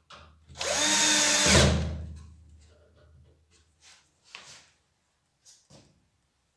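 Cordless drill-driver driving a screw through a metal angle bracket into wood, running for about a second and then stopping, followed by a few light knocks as it is handled.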